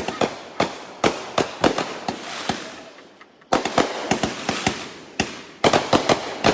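Backyard consumer fireworks going off: a rapid string of sharp bangs with crackling between them. There is a brief lull about three seconds in, then another quick volley.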